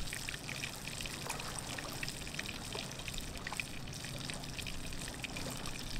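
Breaded mangrove snapper fillets frying in hot canola oil in a skillet over campfire coals: a steady sizzle with many small crackles.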